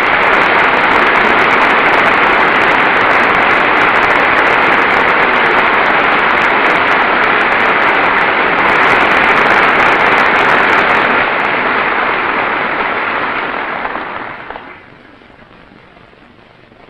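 Loud, sustained applause from a large audience, dying away about fourteen seconds in.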